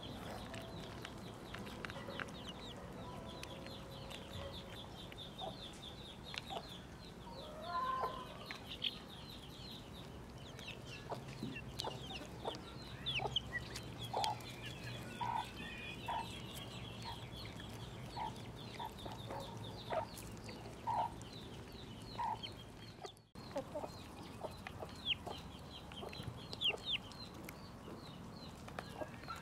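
Chickens clucking, with many quick high chirps throughout and short calls about once a second in the middle stretch; the sound drops out briefly about 23 seconds in.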